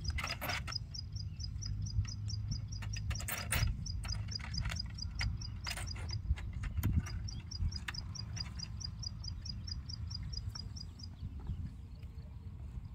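A steady rhythm of short high chirps, about four a second, from a small animal, stopping about eleven seconds in, with a few brief rustling noises over a low rumble.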